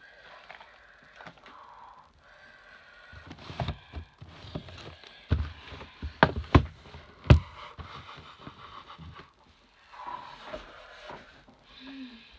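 Plastic VHS cassettes clacking as they are handled and set down on a stack: a run of sharp knocks in the middle, the loudest about seven seconds in, with quieter rustling around them.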